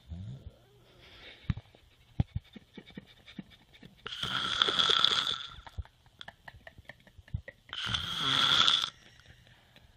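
Loud snoring: two long snores about three and a half seconds apart, with small clicking sounds in the quieter stretches between them.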